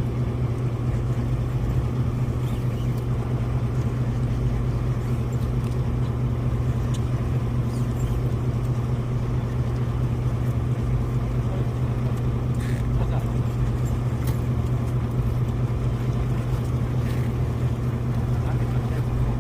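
Fishing boat's engine running steadily, a low even drone, with a few faint clicks.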